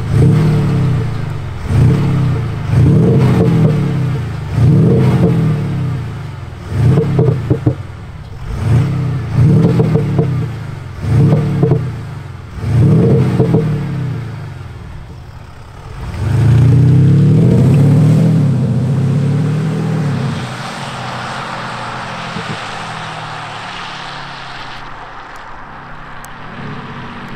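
Mercedes-Benz GLE 350d diesel revved in about eight short rising-and-falling blips, then one longer rev, its exhaust note deepened by retrofitted Active Sound generators at the rear. In the last third the engine sound gives way to a steady hiss as the car pulls away.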